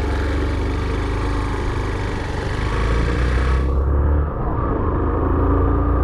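A vehicle's engine running on the move: a steady deep rumble with an engine note that slowly shifts in pitch. A rushing hiss over it drops away about four seconds in.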